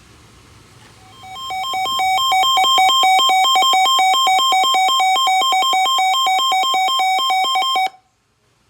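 Electronic emergency-alert attention tone, a beeping warble that alternates rapidly between two pitches. It comes in about a second in, swells up, holds loud and steady, and cuts off abruptly near the end, signalling the start of a severe thunderstorm warning broadcast.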